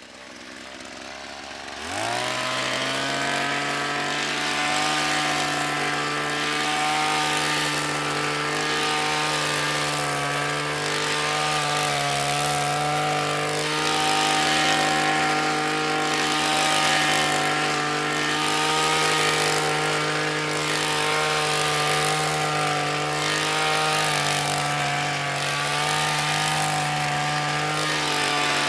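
Hedge trimmer starting up about two seconds in, its motor rising quickly in pitch, then running steadily at one constant speed.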